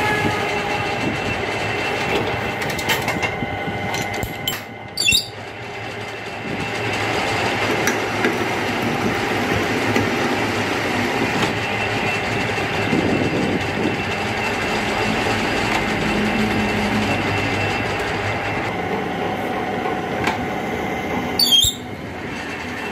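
Metal lathe running with its spindle turning, as a single-point tool cuts a screw thread on a metal rod: a steady mechanical clatter. A short sharp noise comes about five seconds in and another near the end.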